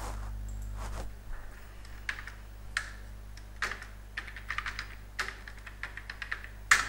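Computer keyboard keys tapped in irregular quick runs as a password is typed, ending in one louder click near the end. A steady low hum runs underneath.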